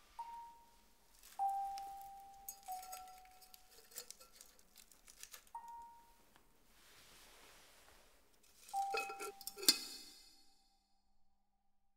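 Sparse, soft background music: a few single bell-like notes, each ringing out for a second or so, over faint rustling and small clicks. Near the end a short flurry of sharp clinks with a ringing note, then silence.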